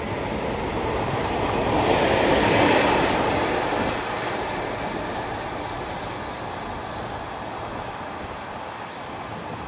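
A train passing, a rush of rail noise that swells to its loudest two to three seconds in and then slowly fades.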